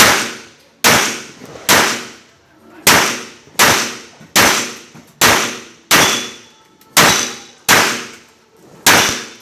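Pistol fired about a dozen times in steady succession, roughly one shot a second, each sharp crack trailing off in a long echo.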